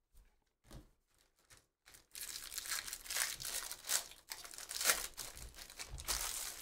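Silvery foil wrapper of a baseball card pack torn open and crinkled by hand. A few faint clicks come first, then a dense crackle starts about two seconds in and runs on for over four seconds.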